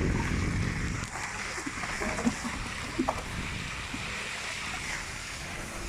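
Steady road and tyre noise inside a moving Skoda Kodiaq, with a few faint thuds about two and three seconds in: the knock from the rear suspension being hunted, heard as a grunting 'boom-boom'.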